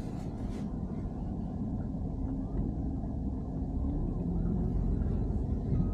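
A BMW E90 3 Series with a steady low rumble from the car on the move. Two brief hissy sounds come within the first second.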